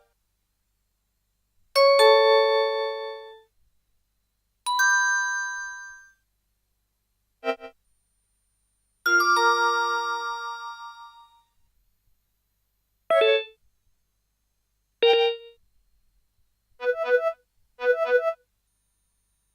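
LG KG110 mobile-phone alert tones played through a Fly DS123 phone's speaker: about eight short electronic chimes one after another with silent gaps between them, most ringing out and fading over a second or two, the last two coming close together.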